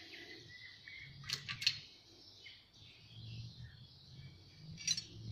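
Faint metallic clicks and clinks as the hydraulic head, still carrying its steel injector lines, is drawn off the body of an RD28 distributor-type diesel injection pump: a few sharp clicks about a second and a half in and another near the end.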